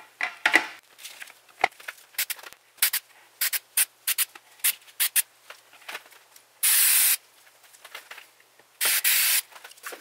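A run of light clicks and knocks from handling, then two short hissing bursts from an aerosol spray can, about seven and nine seconds in, each a little under a second long.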